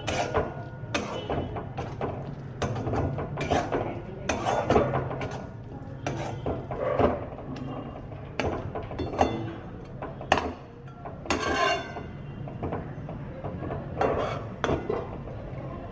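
Steel spatula scraping and knocking against a steel wok while stirring leafy greens being fried in oil: irregular clinks and scrapes about once or twice a second, over a steady low hum.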